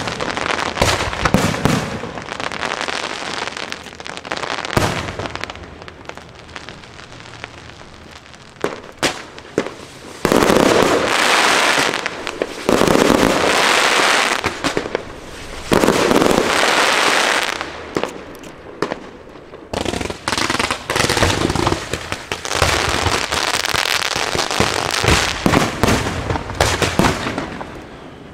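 Aerial fireworks shells bursting in a quick run of sharp bangs. About ten seconds in come three long bouts of dense crackling from crackling-star shells, then more bangs and crackling.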